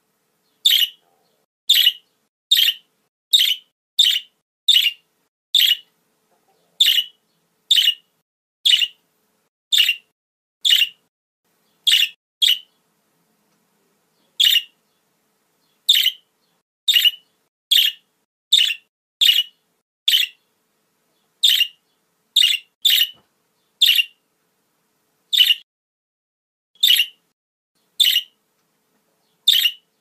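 Budgerigars calling: short, high chirps repeated about once a second, with a brief pause partway through.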